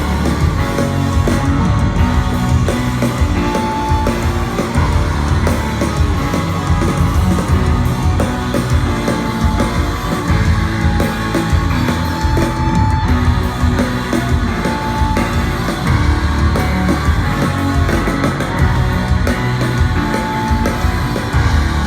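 Live rock band playing loud, with distorted electric guitars, bass and drums, as picked up at a concert.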